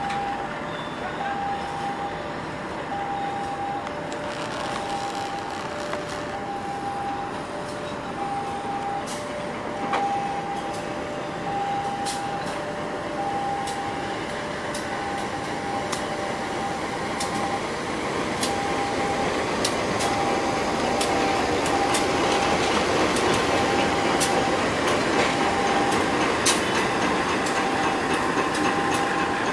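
A level-crossing warning bell sounds in a repeating two-tone pattern, one tone roughly each second. Meanwhile a diesel-hauled train rolls past, its wheel noise and sharp clicks over the rails growing louder through the second half.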